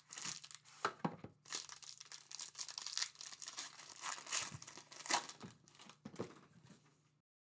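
Foil trading-card pack being pulled from its box and torn open by hand: a run of crackling rips and crinkling rustles of the foil wrapper, stopping abruptly near the end.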